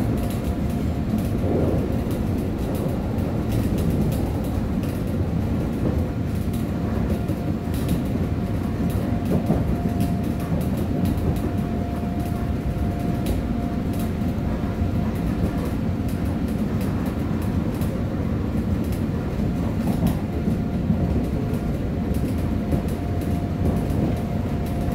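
Interior running noise of a Korail 331000-series electric commuter train cruising between stations: a steady rumble of wheels on rail with scattered clicks. A faint steady whine comes through more clearly from about the middle on.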